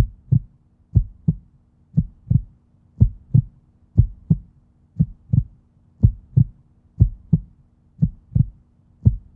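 A low double thump, like a heartbeat's lub-dub, repeating steadily about once a second over a faint hum.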